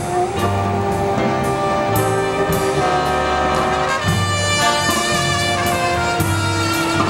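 Live big band playing: trumpets, trombones and saxophones holding chords over a moving bass line.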